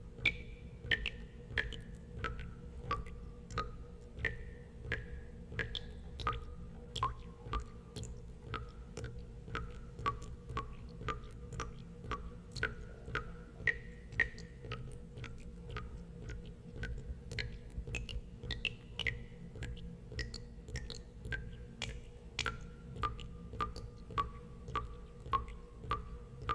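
Water droplets dripping into water: irregular plinks, about two to three a second, each a sharp tap with a brief ringing tone. A low steady rumble runs underneath.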